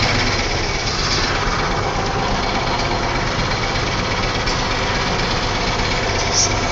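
Caterpillar Challenger MT875 track tractor's diesel engine running steadily, heard from inside the cab.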